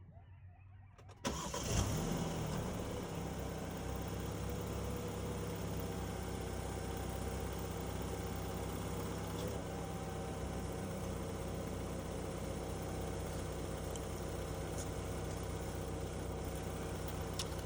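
BMW F30 3 Series engine starting about a second in, briefly flaring up, then settling into a steady idle.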